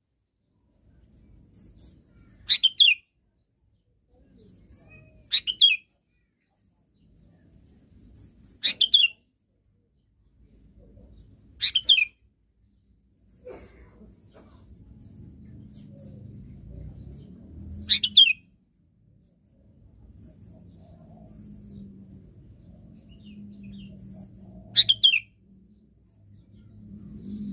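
Sooty-headed bulbul giving six short, sharp calls spaced a few seconds apart, with fainter high chirps between them. A faint low rumble of background noise runs under the second half.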